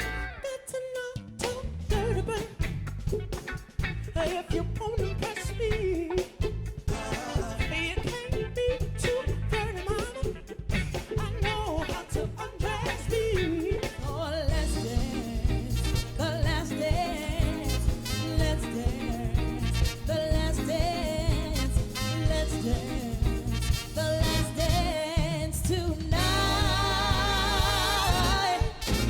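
Live soul band playing, with a lead voice singing over bass, drums and backing instruments.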